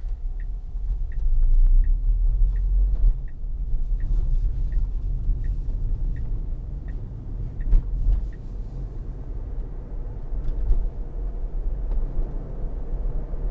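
Road and tyre rumble inside the cabin of a moving Tesla Model Y, an electric car with no engine note. The turn-signal indicator ticks about once every 0.7 seconds during a left turn and stops about eight seconds in. A single knock comes just before the ticking stops.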